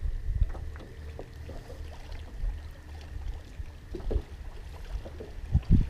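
Water lapping against a small aluminum boat under a steady low rumble, with a few soft knocks, and louder low thumps just before the end.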